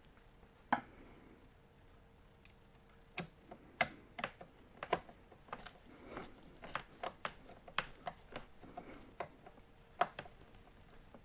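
Scattered light clicks and taps, irregular and unevenly loud, from a screwdriver and small metal screws being handled and fitted into a plate on a Domino joiner, over a faint steady hum.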